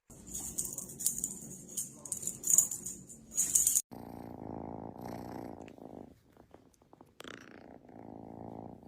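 Domestic cat purring close to the microphone: a steady low rumble. Crackly rustling covers the first few seconds and stops suddenly, and a brief falling squeak comes about seven seconds in.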